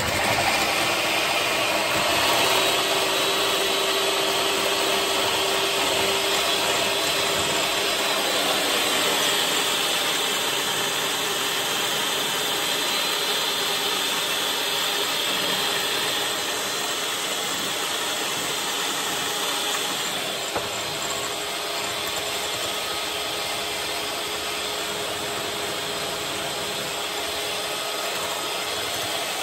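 Electric hand mixer running steadily, its beaters whipping egg whites to a foam in a glass measuring cup. It gets a little quieter after about twenty seconds.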